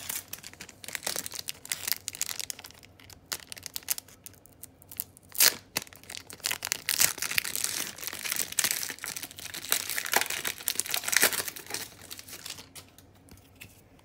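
Crinkling and tearing of a Pokémon card pack's wrapper as it is opened by hand, with one sharp, louder crackle about five seconds in, then dying down near the end.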